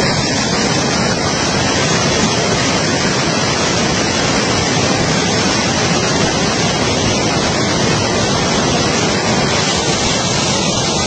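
Loud, steady rush of floodwater: an even noise with no breaks.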